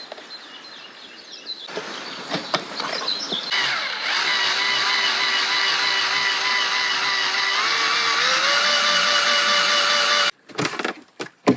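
A small electric motor whines steadily for about six seconds, after a few short knocks; its pitch steps up about two-thirds of the way through, and it cuts off suddenly near the end.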